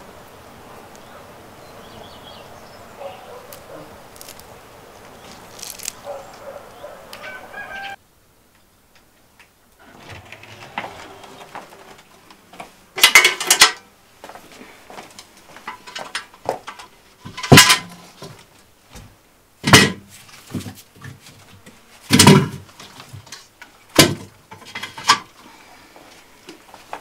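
Chickens clucking faintly in a farmyard. After a short gap, a run of sharp, loud knocks and clatters about every two seconds, with quieter handling noises between.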